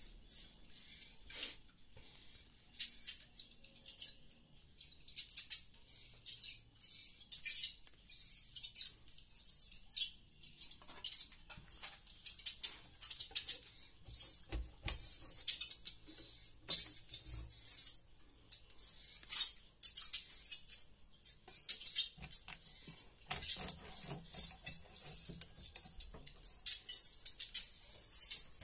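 Swiftlet roosting-call lure ("suara inap") played through tweeter speakers in a swiftlet house: dense, rapid, high-pitched chirping and twittering that goes on without a break. A few low knocks of handling come partway through.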